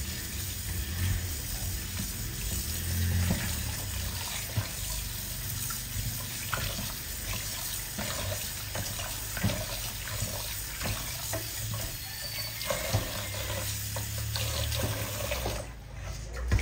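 Tap water running into a sink while raw chicken is rinsed in it, with small knocks and splashes from the handling.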